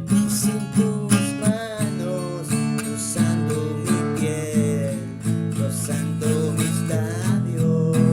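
Music: strummed acoustic guitar chords under a melody line that slides between notes.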